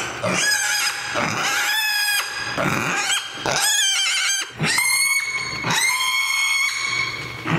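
A sleepy, grumpy mini pig screaming over and over: a string of loud, high-pitched squeals about a second long each, with short breaks between them.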